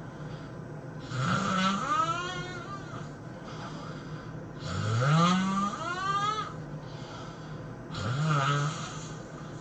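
A person snoring loudly, three long snores about three and a half seconds apart, each rising in pitch as it goes.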